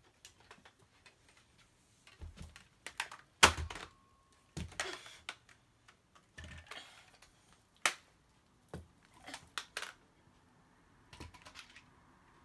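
Irregular clicks and knocks of hard plastic toy parts being handled and fitted together, as a toy robot's detachable arm is put back on; the sharpest knock comes about three and a half seconds in.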